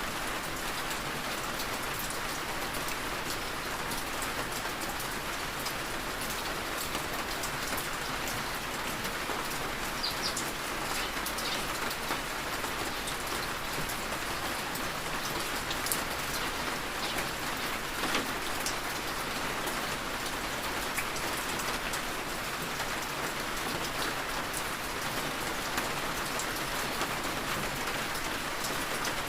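Heavy rain falling steadily, a dense even hiss with many separate drops ticking through it and a few sharper drop hits now and then.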